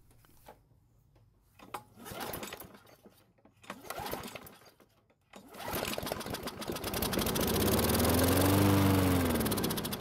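Briggs & Stratton lawn mower engine: two short pulls that don't catch, then a pull a little over five seconds in that catches, and the engine runs, its speed rising and then falling away near the end. It is running on fresh gas poured straight into the carburettor, the sign that the fuel in the tank, not the engine, is at fault.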